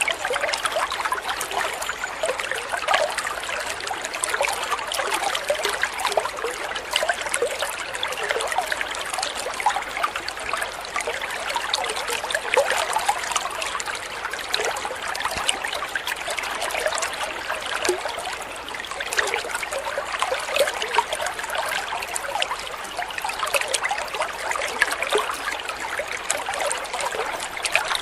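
A small stream of water pouring into a koi pond: a steady trickle made of many small splashes.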